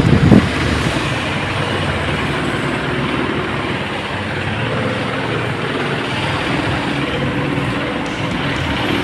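Several pedestal electric fans running at once, two of them turning a plastic tray and a paint-can lid in place of blades, giving a steady whooshing hum. A brief louder low rumble right at the start.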